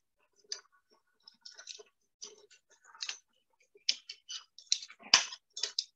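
Metal kitchen tongs clicking against a stainless steel stockpot and against each other while lifting shrimp out of the boil: a string of irregular sharp clicks, the loudest about five seconds in.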